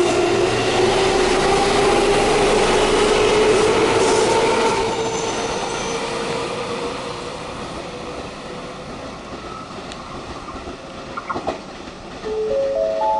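Electric commuter train pulling away, its traction motors giving a slowly rising whine over the rumble of wheels on rail. The sound fades to a softer rail rumble as another train approaches. A short rising chime of four stepped notes sounds near the end.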